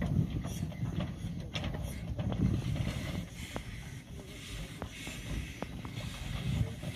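1916 Decauville narrow-gauge steam locomotive running past, its exhaust coming in slow uneven beats, with scattered light clicks from the running gear and track. Wind rumbles on the microphone.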